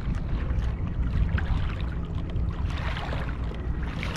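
Water lapping and splashing against the hull of a Vibe Shearwater 125 kayak moving through choppy water, the splashing picking up about three seconds in, under steady wind noise on the microphone.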